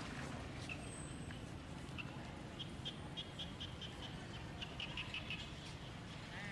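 Short, high-pitched animal chirps repeated in quick runs of several a second, over a steady low background rumble.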